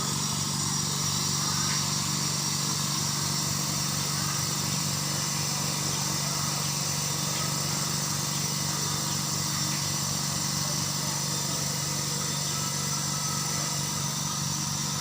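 Izumi Max compressor running steadily with an even, unchanging hum and a faint high whine.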